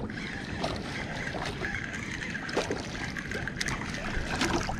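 Open-water ambience on a small fishing boat: wind and water with a steady high-pitched drone and a few light clicks.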